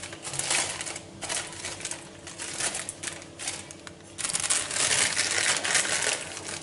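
Bulgur pouring from a plastic packet into a stainless steel bowl: a rustling hiss of grains on metal, with the bag crinkling, louder from about four seconds in.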